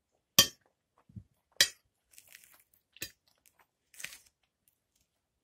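A person eating at close range: a few sharp crunches as food is bitten and chewed, the two loudest about half a second and a second and a half in, with fainter chewing clicks after.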